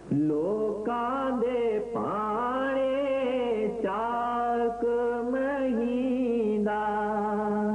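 A singer holding long, sliding notes of a Punjabi devotional song over a steady drone.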